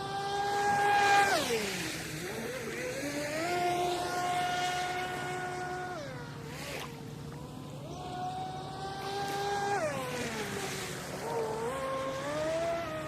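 Brushless electric motor of a HydroPro Inception RC boat whining at high throttle as it runs across the water. The whine holds steady, then drops away and climbs back up, three times, as the throttle is eased and opened again, over a hiss of hull and water.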